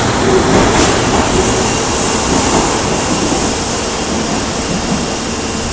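Osaka subway 22 series train running out of the station: a steady rumble and rush of wheels and running gear that slowly gets quieter.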